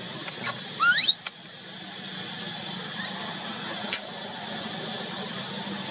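Baby macaque crying: a quick run of high, rising squeals about a second in, then a faint one near three seconds. A single sharp click about four seconds in, over a steady low hum.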